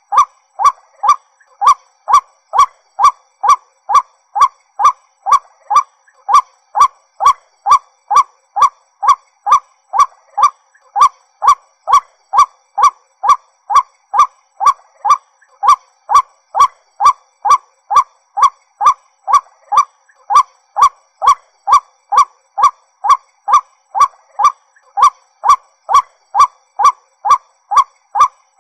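White-breasted waterhen calling. One short call with a sharp start repeats over and over at a very even pace, about twice a second.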